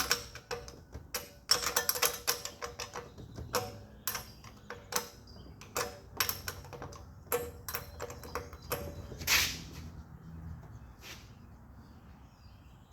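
Irregular metallic clicks and taps of a wrench on the rim lock nut of a dirt bike wheel as the nut is loosened, some in quick runs of several clicks. The clicks thin out after about ten seconds.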